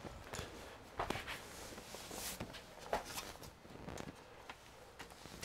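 Laptop bottom cover being handled and set back onto an HP EliteBook 850 G3: soft rustling with a few light knocks and clicks, the sharpest about one second and three seconds in.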